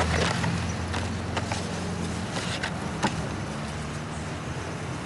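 A steady low hum, with a few short rustles and crinkles of a gift package being unwrapped.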